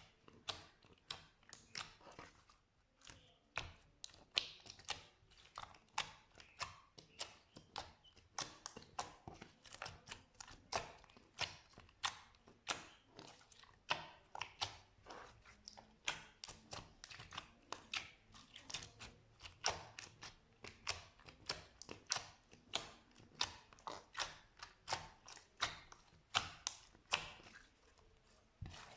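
Slime being worked, making a steady run of crisp, sticky clicks and pops, about two or three a second.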